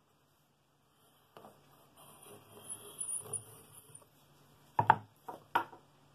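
Compass pencil scratching on a wooden bowl blank as it draws a circle, followed by three sharp knocks about five seconds in as the blank is handled and lifted off the bench.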